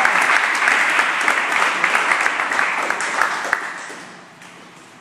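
Group of people applauding, the clapping dying away about three and a half seconds in.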